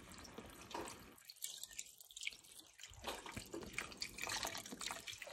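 Chicken bone broth poured from a carton into a stainless steel stockpot, splashing and trickling faintly onto the chicken pieces in the bottom of the pot.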